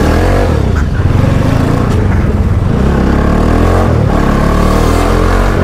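Motorcycle engine running under way. Its pitch rises and falls a few times as the rider works the throttle and gears.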